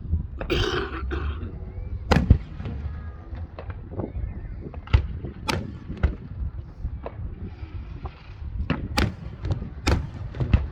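Aerial fireworks shells bursting: a run of sharp bangs of varied loudness over a steady low rumble, the loudest about two seconds in, around five seconds, and twice near the end, with smaller pops between.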